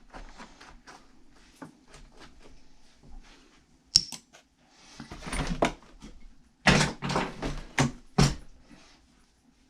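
Scattered clicks, knocks and rattling clunks of a wheel being taken off a Traxxas UDR RC truck by hand and with tools. A sharp click comes about four seconds in, and the loudest clatter falls in the second half.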